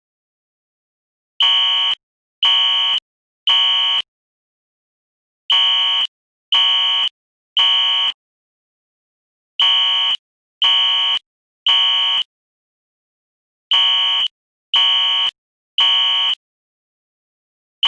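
Fire alarm sounding in the temporal-3 evacuation pattern: a shrill, buzzy tone in groups of three half-second beeps, each group followed by a pause of about a second and a half, four groups in all.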